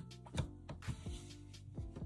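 Background music of sustained, overlapping tones, with a few sharp accents.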